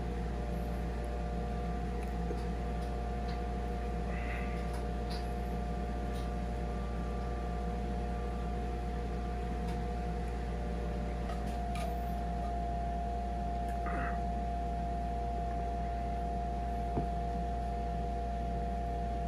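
A steady hum from a running appliance, with a few faint light clicks. One of its tones shifts slightly about twelve seconds in.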